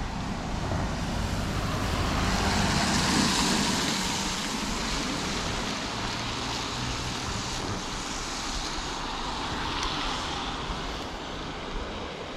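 Cars passing on a rain-wet road, mostly the hiss of tyres on the water: one swells to its loudest about three seconds in and fades, and a second rises and falls about ten seconds in.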